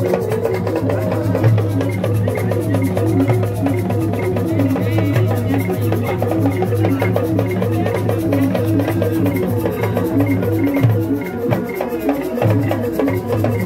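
Live traditional drum ensemble playing a fast, steady rhythm under a repeating pitched melodic figure, with a sustained low bass tone that drops out briefly near the end.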